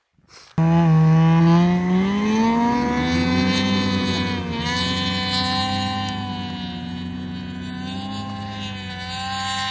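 Snowmobile engine starting up hard about half a second in, its pitch rising over the next two seconds as the sled digs through deep snow, then running steadily under load.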